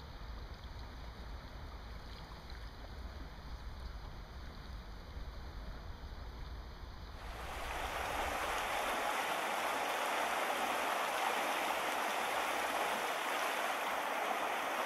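River water flowing steadily, with a low wind rumble on the microphone; about seven seconds in the sound switches to a louder, even rush of water.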